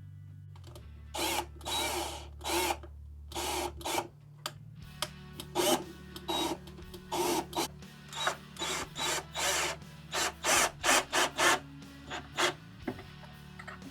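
Repeated short rasping strokes of hand work with a tool, irregular at first and coming faster about ten seconds in.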